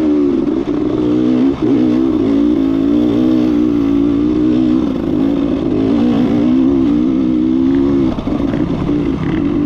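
Enduro dirt bike engine running hard as the bike climbs an uphill dirt trail, its note wavering with the throttle and dipping briefly about a second and a half in and again near the end.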